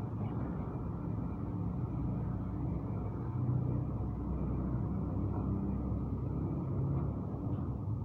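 Steady low rumbling background noise with no clear single event.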